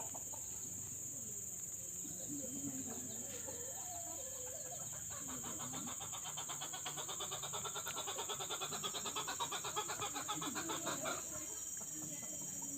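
Chickens clucking and calling over a steady high insect hum, with a fast pulsing chirr from about five to eleven seconds in.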